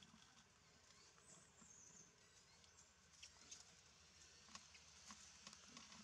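Near silence: faint forest background with a few soft, scattered clicks.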